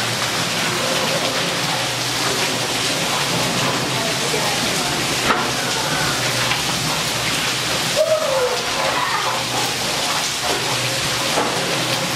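Heavy rain pouring down in a steady, dense hiss of water on the ground and paving. Voices call out over it a few times, most clearly about eight seconds in.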